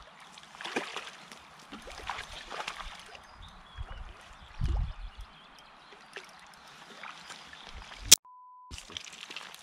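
Water splashing and trickling at the river's edge as a hooked trout is drawn into a landing net, with a low thump about halfway through. Near the end a short steady electronic beep.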